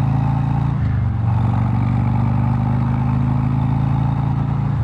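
Harley-Davidson Street Glide Special's Milwaukee-Eight 114 V-twin running steadily under way on the road, with a brief change in its note about a second in.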